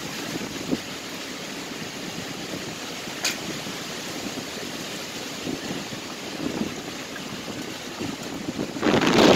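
Hurricane winds rushing steadily through the tree canopy as a continuous hiss of wind in leaves and branches. A louder gust swells near the end.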